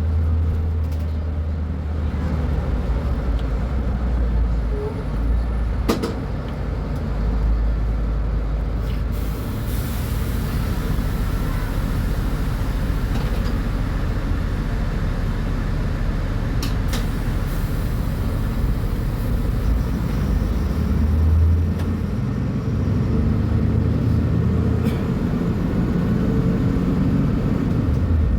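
Diesel engine of a Mercedes-Benz O500U city bus with a Voith automatic gearbox running with a steady low rumble, its note shifting about twenty seconds in. A sharp click about six seconds in and a burst of air-brake hiss about nine seconds in.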